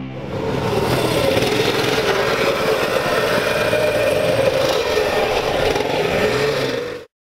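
Small mini dirt bike engine running at a high, wavering pitch as it is ridden over dirt. It cuts off suddenly near the end.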